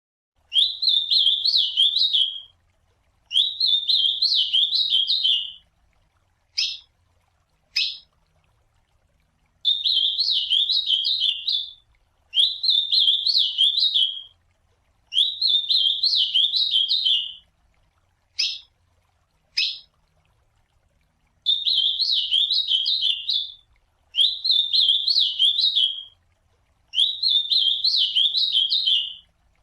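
Ultramarine grosbeak (azulão) singing its warbled song: eight phrases of about two seconds each with short pauses between them. Short single call notes come in pairs in two of the gaps.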